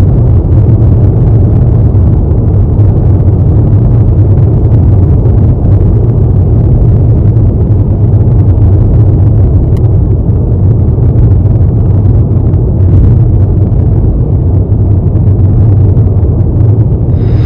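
Steady low rumble of a car driving at speed on the road, heard from inside the car: engine and tyre noise.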